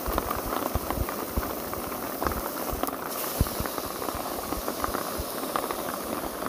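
Steak searing in a hot frying pan, sizzling steadily with constant crackling and spitting. It is turned over with metal tongs partway through, and a sharp tap comes about three and a half seconds in.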